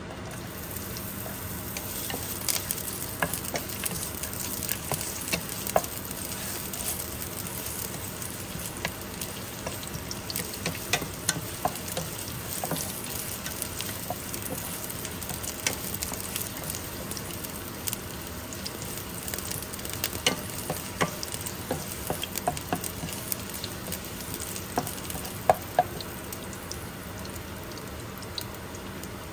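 Sliced ginger sizzling in hot oil in a nonstick frying pan, with a steady hiss and many scattered crackles and pops, stirred now and then with a wooden spatula.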